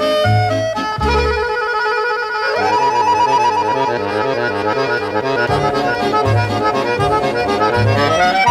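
Instrumental background music: sustained melody notes over a recurring low bass note.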